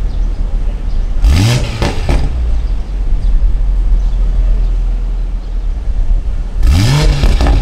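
Toyota GR Supra's engine idling, revved twice in short blips about five seconds apart, each a quick climb in pitch that falls back to idle.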